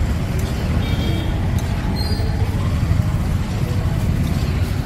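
Steady low rumble of street background noise with road traffic, and a couple of faint brief high tones about one and two seconds in.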